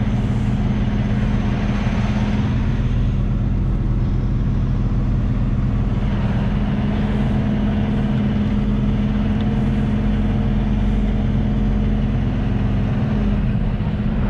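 Semi-truck's diesel engine running steadily at low speed, heard from inside the cab while the truck maneuvers slowly.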